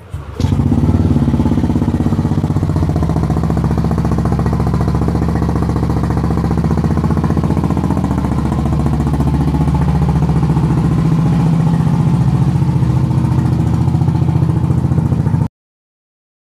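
Yamaha Aerox 155 scooter's single-cylinder engine starting about half a second in and running steadily at idle, just after a CVT rebuild with a new double clutch lining. It cuts off suddenly near the end.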